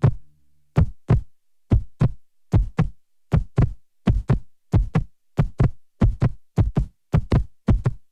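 Heavy heartbeat-like thumps in close pairs, a produced sound effect, starting about a second in and quickening toward the end.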